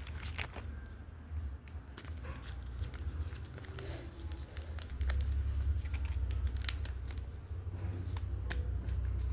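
Plastic blind-bag wrapper being handled and crinkled, with irregular sharp crackles, as the next pack is picked up to be opened. A steady low hum runs underneath and gets louder about halfway through.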